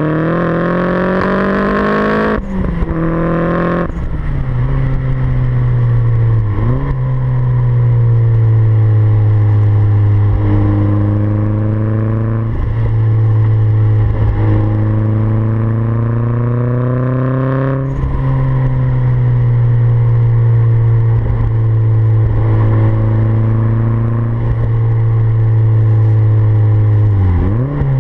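Turbocharged Renault F7R 2.0-litre four-cylinder engine with a 3-inch exhaust, pulling hard. In the first few seconds the revs climb steeply and drop sharply twice, like gear changes; then the engine runs at fairly steady revs with several brief dips.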